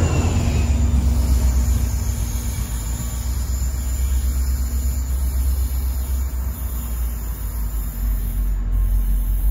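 Train passing through the station: a heavy low rumble that eases slightly over the first few seconds, with a faint steady hum.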